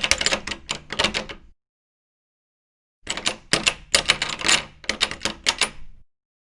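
A door knob being turned and rattled: quick metallic clicks and rattles of the knob and latch. It comes in two bouts, a short one at the start and a longer one about three seconds in, with dead silence between them.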